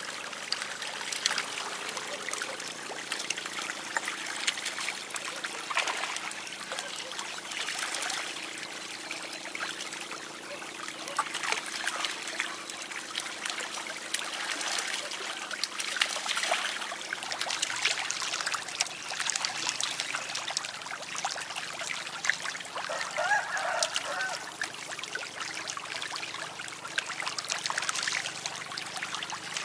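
Many fish splashing and churning at the surface of a pond: a continuous crackle of small splashes with no break.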